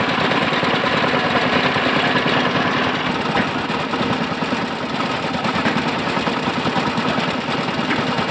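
Small engine running steadily, with rapid, even firing pulses.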